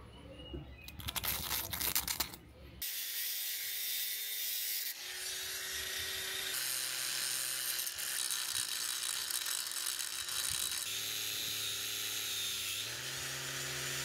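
A metal pick scrapes and clicks against a cast-iron casting for a couple of seconds. Then, about three seconds in, a cordless angle grinder starts and runs, sanding the cast-iron press head; its pitch steps up and down a few times as the load changes.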